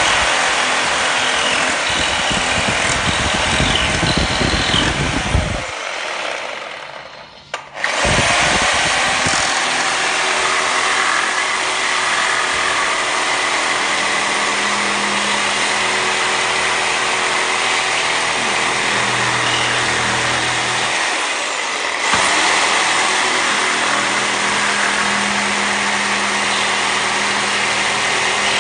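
Reciprocating saw with a high-carbon-steel (HCS) blade cutting through a board with nails in it, running steadily. About six seconds in it winds down and stops, then starts again a second or two later and keeps cutting.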